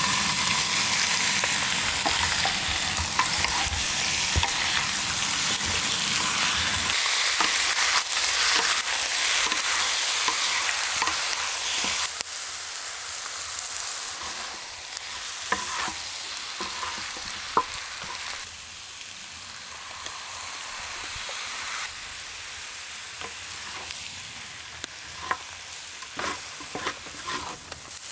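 Raw chicken pieces sizzling loudly in hot oil on a cast-iron pot-lid griddle, with a wooden spatula scraping and knocking as they are stirred. The sizzle starts suddenly as the meat hits the oil and eases after about twelve seconds.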